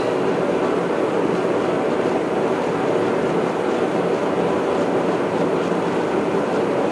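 A forge running: a steady, even rushing noise with no hammer blows.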